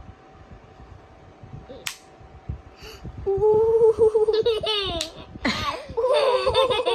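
A child laughing: a quiet start broken by a single sharp click, then from about three seconds in a long, drawn-out squeal of laughter, a breathy burst, and quick wavering giggles near the end.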